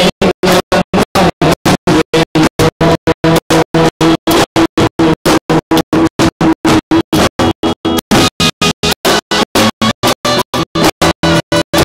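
Live band music with sustained pitched notes, chopped into even pulses about four to five times a second by the sound dropping out. The notes shift higher about eight seconds in.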